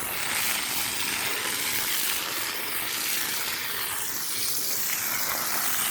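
Water jetting steadily from a hose onto soil, washing the earth away from sweet potato roots to uncover them for harvest.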